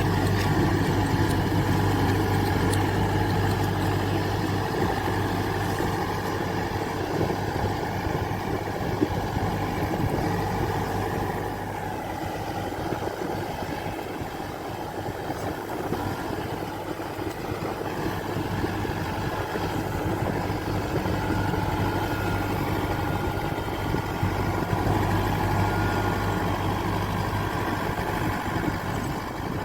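Rice combine harvester's engine running steadily with a constant low hum, easing slightly for a few seconds midway.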